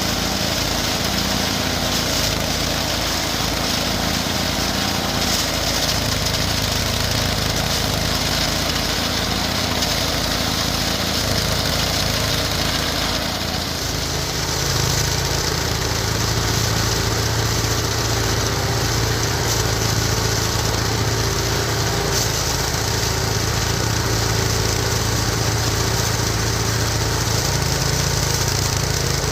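Small engine of a mini rice threshing machine running steadily. About halfway through, the level dips briefly and the running note changes to a lower, steadier hum.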